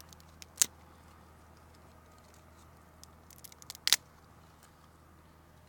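Small dry twigs snapped by hand for kindling: two sharp snaps, about half a second in and just before four seconds, with a few faint crackles leading up to the second.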